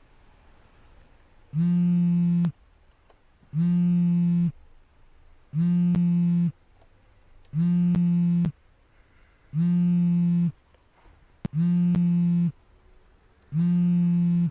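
Mobile phone alarm going off: a low, buzzy tone about a second long, repeating every two seconds, seven times.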